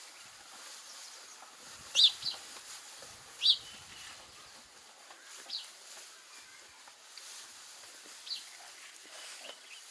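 House sparrows chirping: about six short, sharp chirps spaced irregularly, the loudest two between two and four seconds in, over a faint background hiss.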